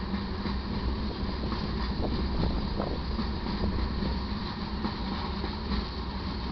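Loaded taconite ore cars rolling by on the rails: a steady rumble of steel wheels on track, with a few faint clicks from the wheels and couplers.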